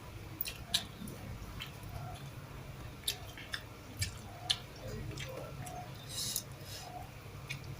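A person chewing and eating a meal of rice and sardines: scattered sharp, wet mouth clicks, with a short breathy hiss about six seconds in.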